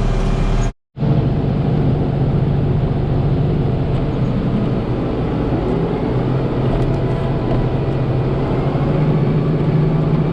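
Tractor engine running steadily, with a short cut-out of sound just under a second in.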